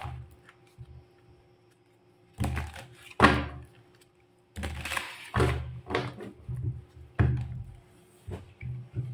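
Tarot deck being shuffled by hand, cards slapping and sliding together with dull thumps against a wooden tabletop. A sharp knock about three seconds in is the loudest sound, then a short pause before a run of repeated thumps and shuffling.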